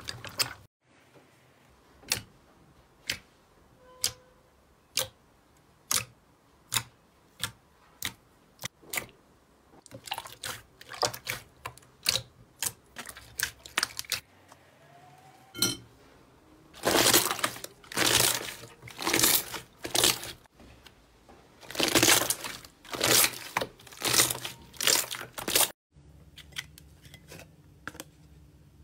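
Hands pressing and squeezing clear slime. It gives sharp sticky pops, about one a second at first and then quicker, followed by longer, louder wet squelches in the second half.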